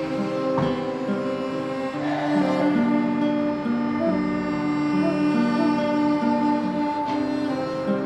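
Slow background music of sustained bowed string notes, with some plucked guitar.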